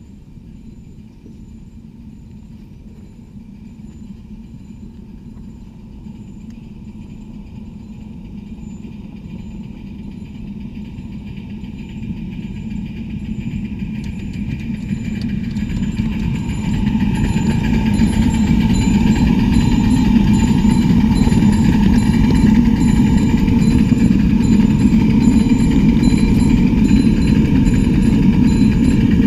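A 7½-inch gauge live steam locomotive running toward the microphone and past close by, its sound growing steadily louder over about the first eighteen seconds, then holding.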